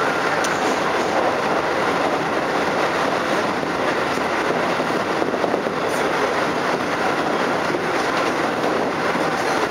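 Running noise of a Keikyu New 1000 series electric train at speed, heard from inside the car: a steady rumble of the wheels on the rails.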